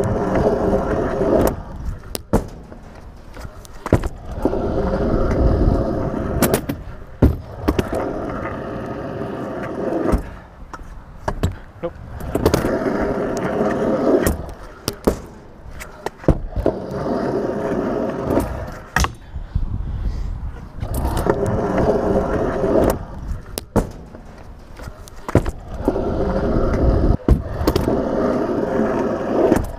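Stunt scooter wheels rolling over rough tarmac and ramps, a dense rumbling whir in stretches of about two seconds, again and again, with sharp clacks and knocks from the deck and wheels striking ramp edges and landing between them.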